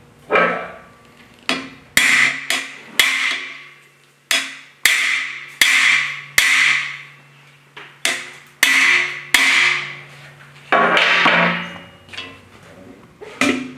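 A hammer striking the driver bar of a cam bearing installation tool, driving a cam bearing into its bore in an engine block. Sharp metallic blows, roughly one a second with some in quick pairs, each ringing on briefly.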